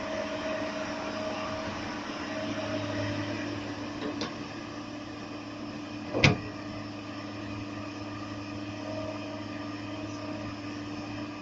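Excavator engine running steadily, with a faint click about four seconds in and a single sharp knock a little after six seconds.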